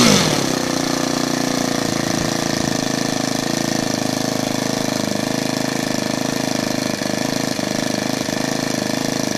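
Model airplane engine dropping from a rev to a steady idle just after the start, with a few brief dips in the note near the end. Below full throttle its mixture is metered by a fuel solenoid pulsing at 25 Hz, with the low-speed needle removed from the carburettor.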